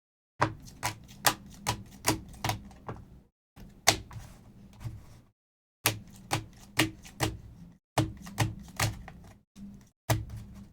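Trading cards being handled and set down on a table: sharp clicks and taps, about two to three a second, in short runs broken by abrupt silent gaps.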